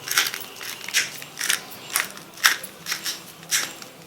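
Black pepper being ground over the soup with a hand pepper grinder: repeated grinding strokes, about two a second.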